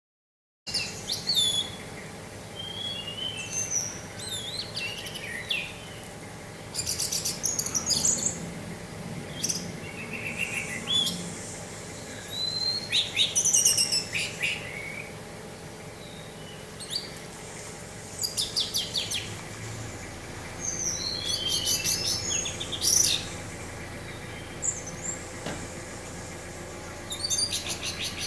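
Orange-headed thrush singing after a brief silence: a run of varied sweeping whistled phrases broken by fast rattling trills, over a steady hiss of wind.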